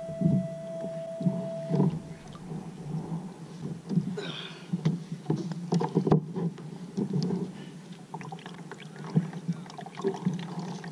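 Water sloshing against a kayak's hull, with repeated knocks and thumps as a gaffed king mackerel is hauled aboard onto the plastic kayak.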